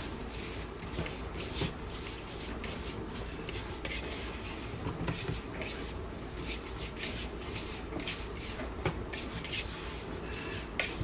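Gloved hand massaging seasoning into chunks of cooked chicken: soft, repeated rubbing and squishing with small rustles of the glove.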